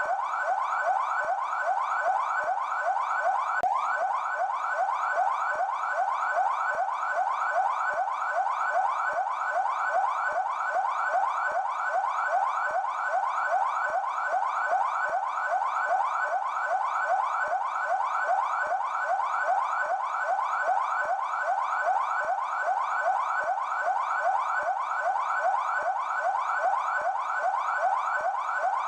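Police siren on its yelp setting: a fast, unbroken up-and-down wail that repeats the same quick pitch sweep at an even rate.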